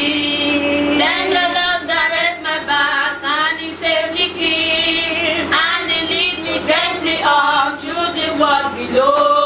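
A woman and two girls singing a church song together into a handheld microphone, with long held notes.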